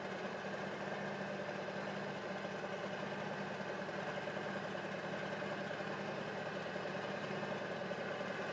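The engine of a self-propelled thermoplastic road marking machine running steadily as the machine drives along.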